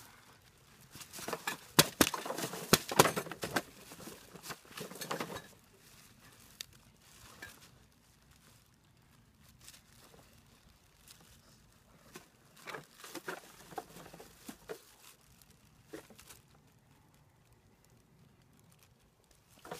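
Empty plastic bottles and plastic sheeting crackling and crunching under a puppy's paws as it grips and tugs a bite rag. A dense run of crackles comes in the first few seconds, then scattered quieter crackles in the middle.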